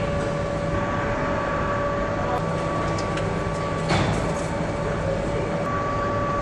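Steady factory machinery noise with a low hum and two constant tones, and a sharp click about four seconds in.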